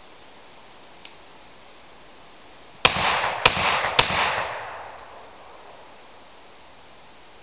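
Three gunshots from a shouldered long gun, fired in quick succession about half a second apart, each followed by echo that dies away over about a second. A faint click comes a couple of seconds before the first shot.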